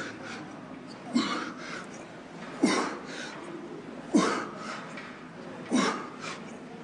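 A man lifting heavy weights breathes out hard with a short grunt on each rep, four times at an even pace of about one every one and a half seconds.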